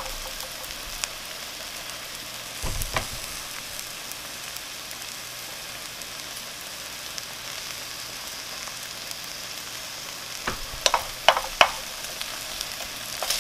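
Eggs and diced vegetables sizzling steadily in a nonstick frying pan, with a few knocks and scrapes of a spatula on the pan about three seconds in and again a couple of seconds before the end.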